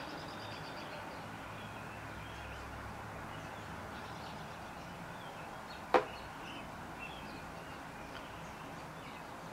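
Quiet handling of a pair of socks and their tag and packaging, with one sharp click about six seconds in.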